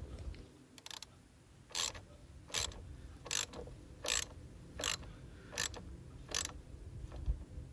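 Socket ratchet clicking in seven short bursts, about one every three quarters of a second, as its handle is swung back and forth on a car battery terminal nut to tighten the clamp on a new battery.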